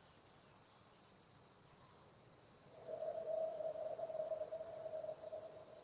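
Faint steady chirring of crickets or other insects in a grassy field. About three seconds in, a steady mid-pitched tone starts and holds to the end, louder than the insects.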